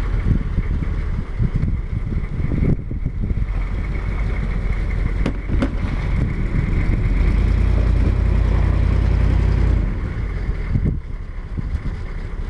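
Vehicle under way: steady engine and road rumble with wind noise, growing heavier for a few seconds past the middle.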